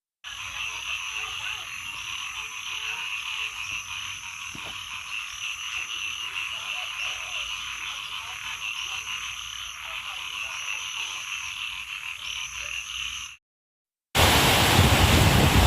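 Dense chorus of frogs calling steadily, with a higher call repeating about once a second. It cuts off near the end, and after a moment's gap heavy rain starts, louder than the frogs.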